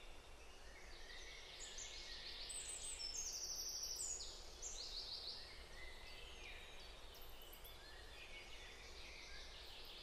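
Faint birdsong, many short chirps from several birds overlapping, busiest about three to four seconds in, over a steady low hum.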